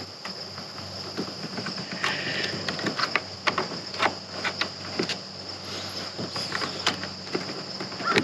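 Scattered sharp clicks and light knocks of a fuse and small parts being handled at a truck's fuse box, over a steady high-pitched hiss; no blower motor starts.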